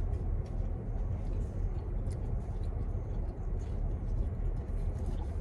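Steady low rumble of an idling car heard from inside the cabin, with faint small clicks and rustles over it.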